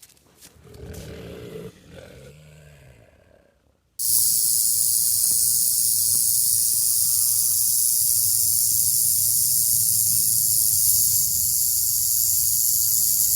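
A loud, steady, high-pitched hiss that starts suddenly about four seconds in and cuts off abruptly near the end. Before it, there are faint low growling sounds.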